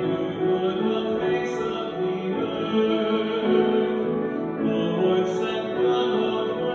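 Church music: a voice singing held notes over piano accompaniment.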